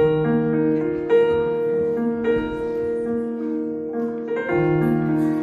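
Instrumental music of sustained keyboard chords: a chord comes in sharply at the start and is held, and a new chord is struck about four and a half seconds in.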